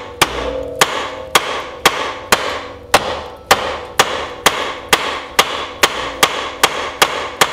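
Hard-plastic-faced hammer striking the top of an upper ball joint on an ATV's front A-arm: a steady run of sharp blows, about two a second. The ball joint is stuck in the arm and does not come out.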